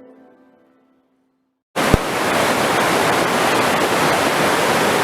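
The tail of soft instrumental music fades to silence. About two seconds in, the loud, steady rushing of the Dan Spring's water cuts in abruptly, with a single low thump just after it starts.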